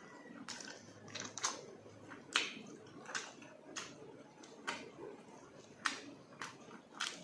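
Close-up eating sounds: wet chewing and lip smacks as stewed tuna jaw and rice are eaten by hand. About a dozen sharp, moist smacks, irregular, roughly one every half second.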